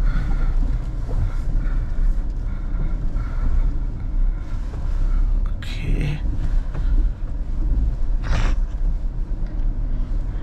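Maruti Suzuki Jimny's 1.5-litre four-cylinder petrol engine and drivetrain rumbling steadily at crawling speed over a rocky, wet riverbed, heard from inside the cabin. Two short noisy rushes come about six and eight and a half seconds in.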